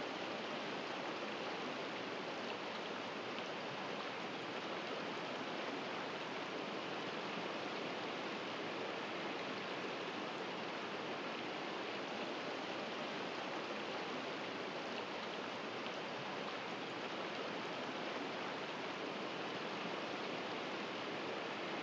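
Steady rushing of a nearby stream, an even hiss that holds level throughout without gusts or breaks.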